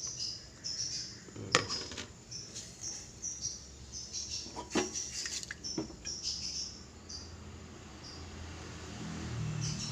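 High, short chirps repeating throughout, like small birds calling, with a few sharp clicks scattered among them.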